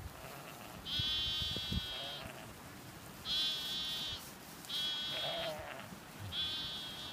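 Sheep bleating: four separate high-pitched calls, each lasting about a second.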